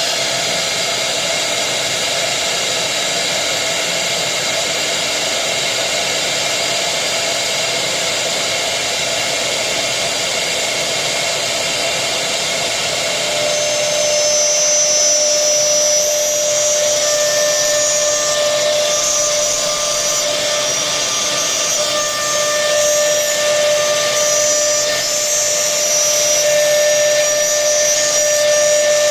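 Multi-spindle CNC wood router's air-cooled high-speed electric spindles running with a steady high whine over air noise. About halfway through the whine changes to a different set of steady tones and gets slightly louder.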